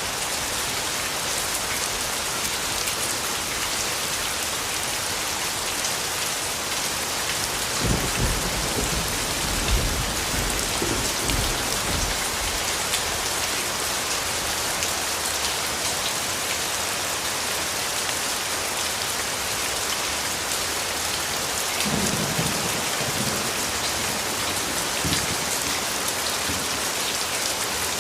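Steady heavy rain falling, an even hiss. Low rumbles of thunder break through about 8 seconds in for a few seconds and again about 22 seconds in.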